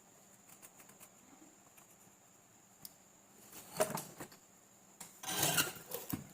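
Two short bursts of rubbing and scraping from hands handling electronic parts on a workbench, about four and five and a half seconds in, with faint ticks before them.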